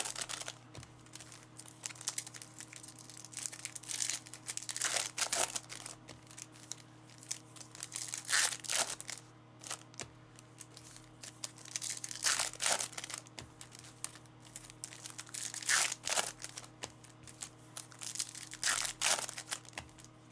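Plastic wrapping crinkling and tearing in short bursts every few seconds as sealed trading-card boxes or packs are opened, over a steady low hum.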